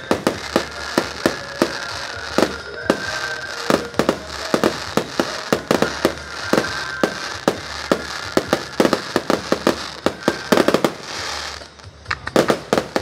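Aerial fireworks display: a rapid, irregular series of bangs from bursting shells. A short lull comes near the end, followed by a quick cluster of bangs.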